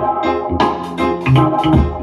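Music with a heavy bass line and a beat, played loudly through a 60-watt portable Bluetooth speaker during a sound test.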